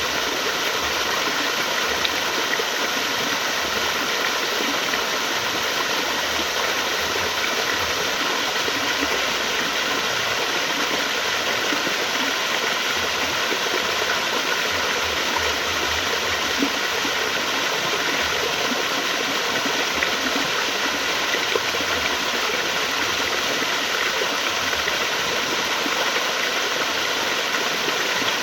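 Flowing water, a steady rush with no breaks.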